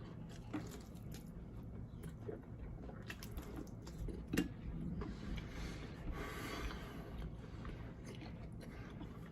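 A person chewing sauce-soaked fried chicken, quiet wet chewing with scattered faint clicks and a slightly louder stretch about six seconds in.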